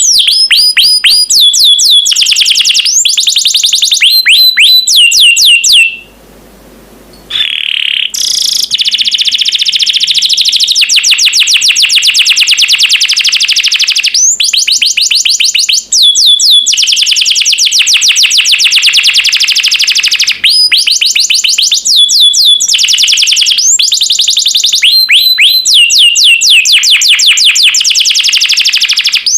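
Domestic canary singing loud, fast trills of rapidly repeated, downward-sweeping high whistled notes, phrase after phrase, with a brief drop in the song about six seconds in.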